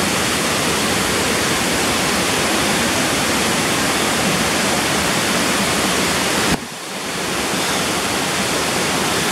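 Rushing water of a river near a waterfall, a steady loud roar that dips suddenly about six and a half seconds in and then builds back up.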